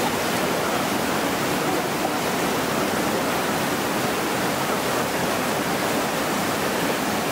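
Whitewater rapids rushing steadily, a dense, even noise of churning river water.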